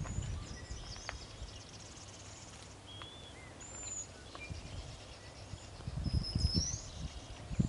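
Marsh birds calling: scattered high chirps and short whistles, with a rising whistle about six seconds in. Footsteps on a gravel trail come through as low thumps that grow louder near the end.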